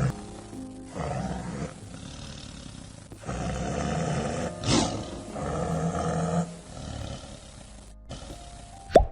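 Tiger roaring and growling in several long bursts, with background music.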